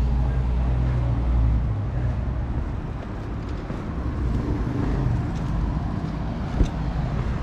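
Road traffic on a city street, cars running past. A heavy low rumble fills the first two seconds, then the noise settles lower, with a single sharp knock about six and a half seconds in.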